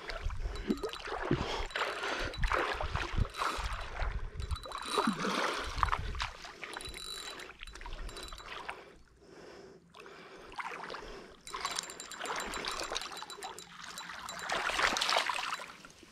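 Water splashing and sloshing as a hooked silver arowana thrashes at the surface while it is played in on a rod, in irregular surges, with a low rumble through the first half.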